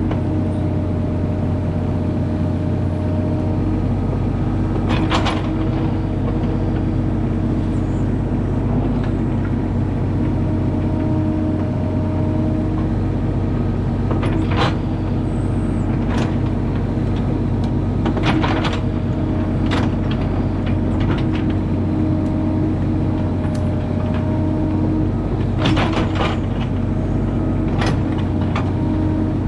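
Mini excavator's diesel engine running steadily, with a higher hydraulic whine that comes and goes as the boom and bucket move. Several sharp clanks, about five, from the bucket and arm as it digs into the soil.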